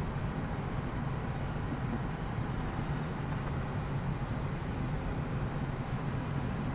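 Steady cockpit noise of a Gulfstream G550 in flight: a low, even drone of airflow and engines with a hiss above it.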